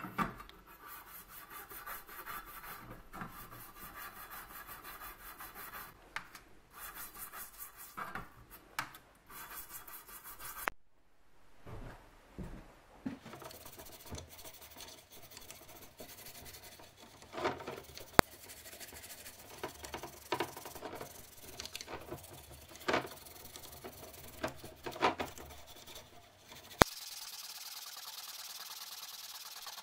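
A toothbrush scrubbing an electric cooker's hotplate, the bristles scraping in quick back-and-forth strokes, dense at first and sparser after about eleven seconds. Near the end it changes to a steady high hiss as the plate is rubbed with a rag.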